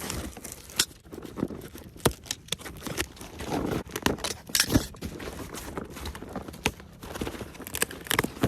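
A cardboard box being handled and opened by hand: scattered knocks, taps and short rustles of cardboard and paper.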